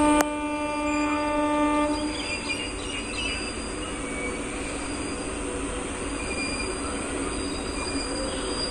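Horn of a WAG-9H electric locomotive, one steady tone that cuts off about two seconds in, followed by the steady rumble of the locomotive and its train of boxcar wagons rolling over the track.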